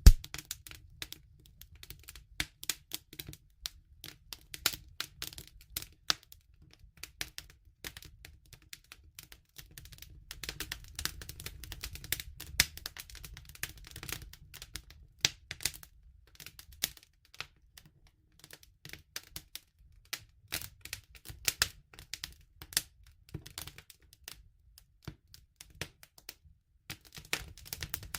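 Campfire wood crackling: irregular sharp snaps and pops, some dense and some sparse, over a low steady rumble of the fire.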